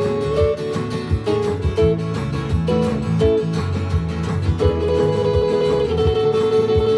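Live instrumental country-style tune played on acoustic guitar, electric guitar and electronic keyboard, with a steady bass line and a long held note through the second half.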